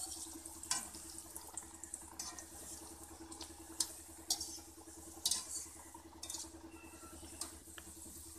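Kachoris deep-frying in hot oil in a kadhai: a steady sizzle with frequent sharp pops and crackles, a few of them loud.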